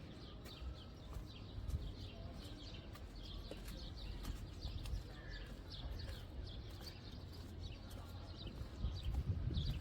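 Birds chirping again and again over a low outdoor rumble, with scattered sharp clicks that grow louder near the end.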